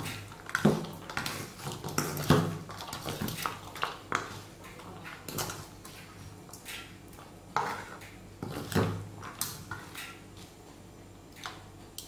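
A spatula stirring corn salad in a stainless steel mixing bowl: irregular knocks and scrapes against the bowl's sides, sparser near the end.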